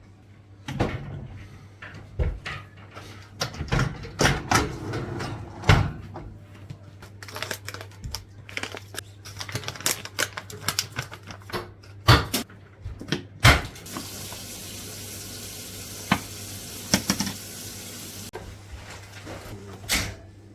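Dishes and utensils clinking and knocking as they are handled at a kitchen sink. Past the middle a tap runs steadily for about four seconds, then the clinks go on.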